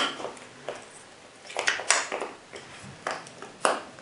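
Handling noise from a rifle scope being turned over in the hands: a sharp click at the start, then a few more clicks and taps, one strong one near the end.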